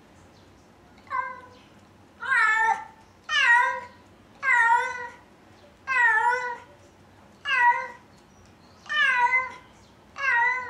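A cat meowing over and over: eight drawn-out meows, about one every second and a half, with a short pause between each.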